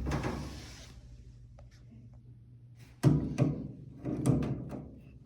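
Hands working on a washing machine's drain hose and clamps at the drain pump: a sharp knock with a short hiss, then two heavy thunks of parts and tools against the machine about three and four seconds in.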